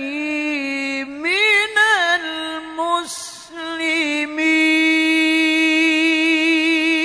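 Male Quran reciter in melodic tilawah, drawing out a vowel in long held notes with wavering ornaments. The pitch rises and falls around the first two seconds and breaks with a short breath-like hiss about three seconds in, then holds a long steady high note that wavers near the end.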